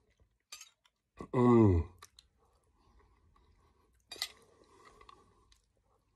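A short, low hum from a man eating, falling in pitch, about a second in. Around four seconds in, a metal spoon clinks as it scoops chilli pickle out of a glass jar, followed by faint small handling and mouth noises.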